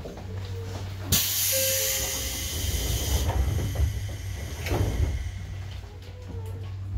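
A stationary Seibu Tamako Line electric train lets out a sudden hiss of compressed air about a second in, lasting about two seconds. A steady low hum from the train's equipment runs underneath.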